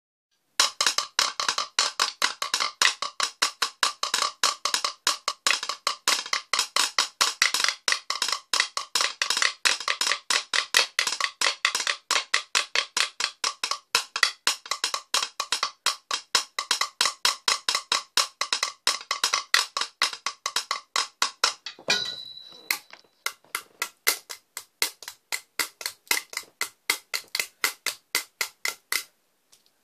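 Wooden stool top played as a drum: quick, evenly spaced taps for most of the time, then a brief break about three quarters of the way through, after which the taps come sparser and sharper.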